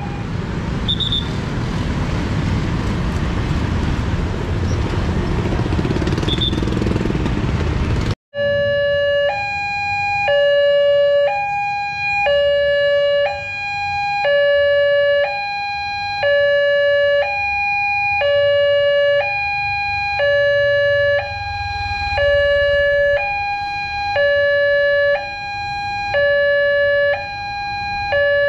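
Railway level-crossing warning alarm: an electronic two-tone signal alternating between a lower and a higher tone, each held just under a second, sounding while the barriers are down for an approaching train. For the first eight seconds it is buried under loud road noise, then after a sudden break the alarm is heard on its own.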